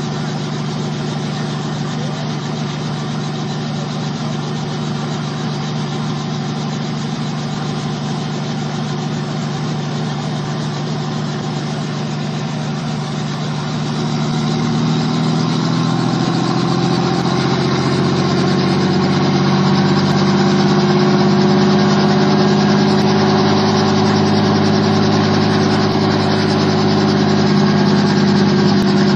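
Robinson R44 helicopter's piston engine running steadily on the pad with its rotor turning. About halfway through, the engine note rises in pitch and gets louder as the rotor spins up, then holds steady at the higher speed.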